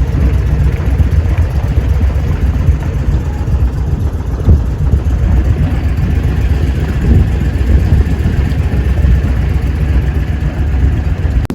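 Boat motor running steadily underway, a loud continuous low rumble.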